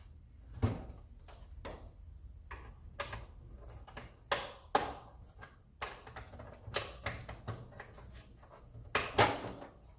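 Irregular sharp plastic clicks and knocks as an Xbox One S's plastic case is pried apart with a blunt pry tool and its snap-fit clips let go, a cluster of louder ones near the end.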